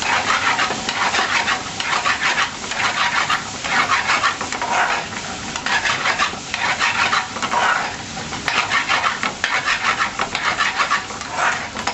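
Chicken tikka pieces and garlic frying with no gravy in a hot pan, sizzling loudly while a metal ladle stirs and scrapes them in repeated strokes.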